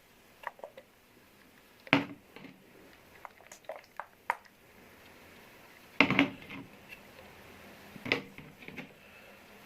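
Slime being squished and handled, giving scattered sticky clicks and pops, the loudest about two, six and eight seconds in.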